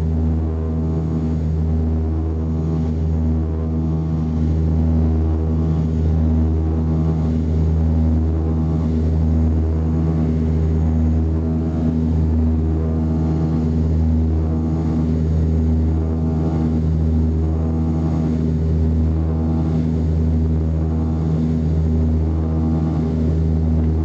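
Cabin drone of an ATR 72 turboprop's engines and propellers in climb: a steady, loud low hum of several pitches that swells and fades slowly, the beat between the two propellers.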